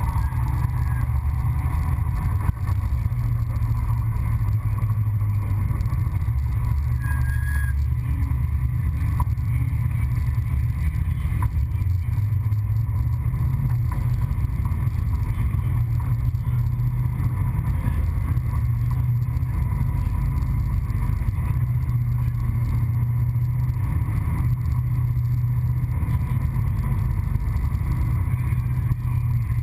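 Super late model race car's V8 engine running steadily at low revs as the car rolls slowly off the track into the pits, heard from inside the cockpit as a constant deep rumble with no revving.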